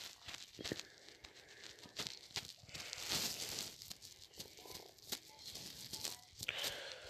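Faint rustling with scattered small clicks, the handling noise of a phone being held and its screen swiped. The rustle thickens for a moment about three seconds in.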